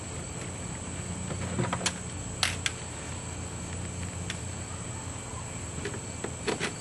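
A few sharp clicks and one brief scrape of a Torx bit and hand tool working the bolts of a car door panel, over a steady high drone of crickets and a low hum.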